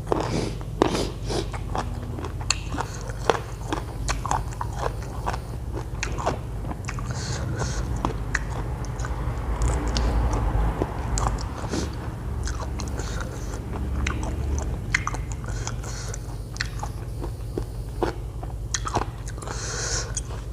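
A person chewing and biting into spicy Thai papaya salad with rice noodles, pickled shrimp and pickled field crab, close to the microphone, with many irregular sharp crunches and clicks.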